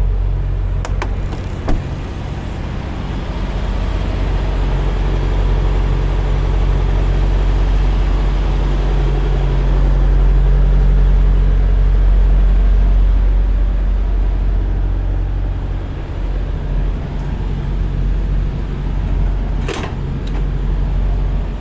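Semi truck's diesel engine running steadily with a low drone that swells for a few seconds midway, with a couple of sharp clicks.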